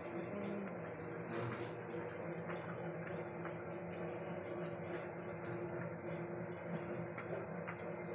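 Steady low background hum made of a few level tones, with scattered faint ticks.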